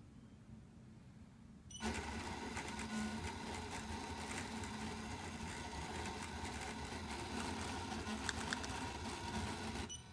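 CAME-TV 7500 gimbal's brushless motors buzzing as they drive the camera around, with scattered clicks, starting about two seconds in and cutting off suddenly near the end. The gimbal is misbehaving because of calibration problems.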